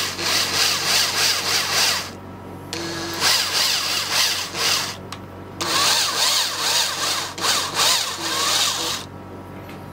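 Electric drill with a 3.5 mm bit boring out the centre hole of a small 3D-printed PLA part, run in three bursts of two to three seconds with short pauses between. It is drilled in stages so the plastic doesn't heat up and smear.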